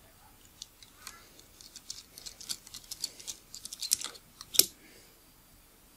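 Quick small metallic clicks and ticks from a precision screwdriver and tiny metal parts being worked at the rear of a Nikkor 50mm f/1.4 AI-s lens. The clicks grow busier and end in one sharper click about four and a half seconds in.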